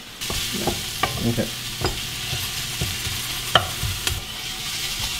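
A metal spoon scraping and tapping inside a small wire-mesh strainer as flour is sifted into a saucepan of milk for white sauce, with a few sharp ticks, the loudest about three and a half seconds in. Underneath runs a steady sizzling hiss of onion and garlic frying in oil.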